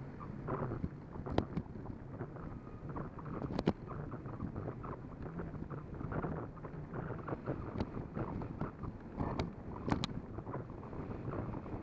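Riding noise from a Capital Bikeshare bicycle: wind buffeting the microphone over a steady rattle from the bike, with a few sharp clicks or knocks, the loudest near the end.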